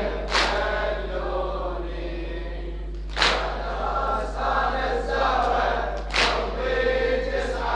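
Congregation of mourners chanting the latmiya refrain together in unison, with a loud collective chest-beating strike (matam) about every three seconds, three times.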